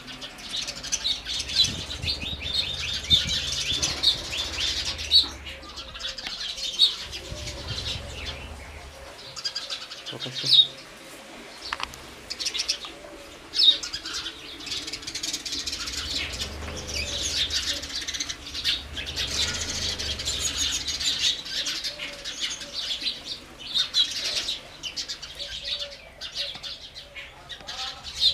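House sparrows chirping, many short overlapping chirps in a continuous chatter with a few louder sharp calls.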